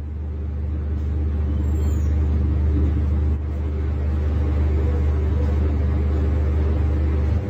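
Bus diesel engine running steadily at a constant speed, heard close to the engine bay: a deep, even rumble that swells in over the first couple of seconds.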